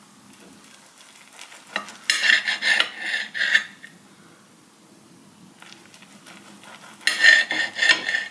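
A kitchen knife slicing through a rolled omelette and scraping and clicking on a ceramic plate, in two bouts of short strokes: one about two seconds in and another near the end.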